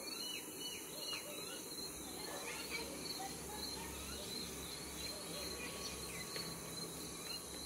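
Steady high-pitched chorus of insects such as crickets, with a few faint short chirps over it.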